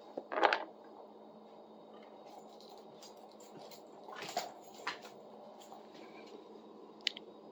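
Quiet handling noises as the rusty pruning-saw blade is moved about in its vinegar soak: a short scraping rustle about half a second in, then a few soft knocks and clicks around four to five seconds and once near the end, over a faint steady hum.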